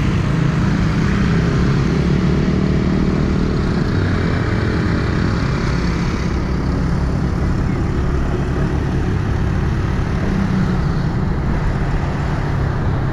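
Steady running noise of a motorbike underway at city speed: the engine running with road noise, no sudden events.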